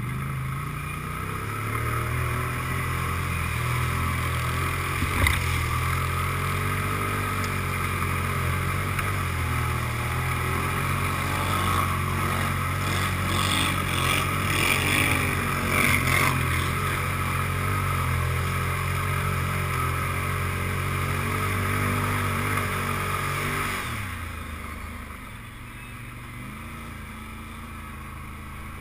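Can-Am ATV engine running steadily under load while the quad ploughs through mud and water, with splashing around the middle. About 24 seconds in the engine eases off and runs quietly.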